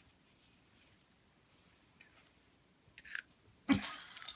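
Dog biting into popcorn: a short crisp crunch about three seconds in, then a louder, sharper crunch near the end.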